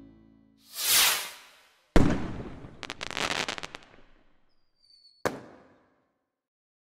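Fireworks-style logo sound effect: soft music fades out, a whoosh swells about a second in, then a loud bang with a crackling tail, a brief high whistle, and a final sharp crack near the end.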